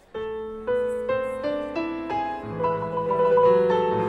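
Piano music begins just after the start: a melody of struck notes over low chords, a new note every third of a second or so.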